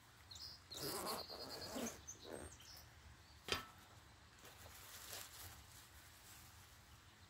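Soft-sided telescope case being handled: the last of its zipper pulled open and the lid lifted, giving quiet rustling and scraping with a sharp click about three and a half seconds in. Faint high chirps sound in the first couple of seconds.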